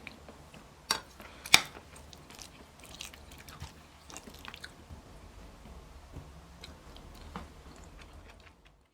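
Someone eating a rice bowl: soft chewing with many small clicks, and two sharper clicks about a second and a second and a half in.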